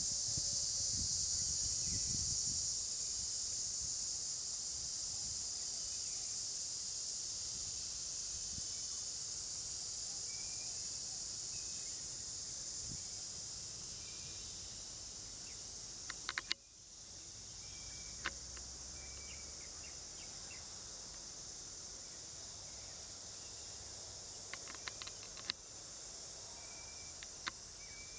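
Steady, high-pitched chorus of insects, with faint short chirps scattered through it and a few sharp clicks around the middle and near the end.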